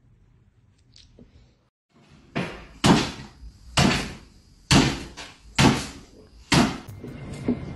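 A small dog hopping on its hind legs on a wooden floor, its paws thumping down six times, about one landing a second.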